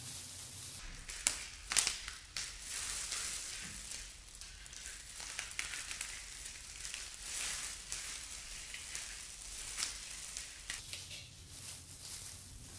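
Faint crinkling of disposable plastic gloves with small cracks and squishes as gloved hands break apart pieces of spicy marinated raw blue crab and squeeze out the meat.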